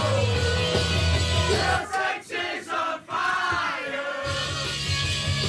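Dance music played over a speaker in a crowded train carriage, with a crowd of passengers singing and shouting along. About two seconds in, the bass beat drops out and the crowd's singing carries on over it. The beat comes back in a little after four seconds.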